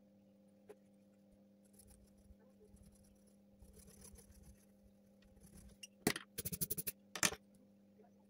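Graphite pencil on drawing paper: faint rustling, then a quick run of sharp scratchy strokes a little past the middle and one more near the end, over a steady low electrical hum.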